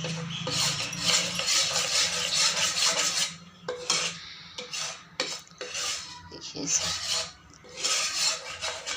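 Besan being roasted in ghee in a pan, with a stirring utensil scraping and rubbing across the pan's bottom. It scrapes continuously for about three seconds, then in shorter separate strokes with brief pauses.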